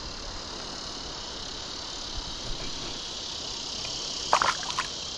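A steady, high-pitched insect chorus. About four seconds in, a few short splashes as a bass is let go into the water beside the canoe.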